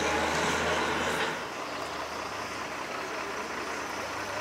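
A heavy truck's engine running, loud and close for about the first second, then dropping to a steady, quieter engine and background rumble.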